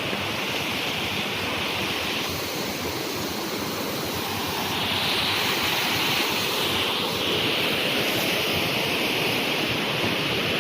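Waterfall rushing: a steady roar of falling water that gets a little louder about halfway through.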